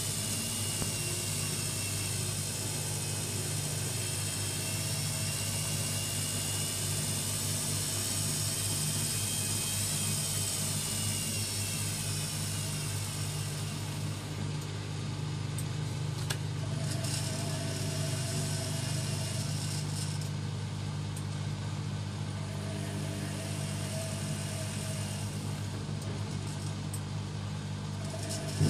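AEG Lavamat 6410 washing machine running, with a steady motor hum and a faint whine that slowly shifts in pitch. A high hiss thins out about halfway through.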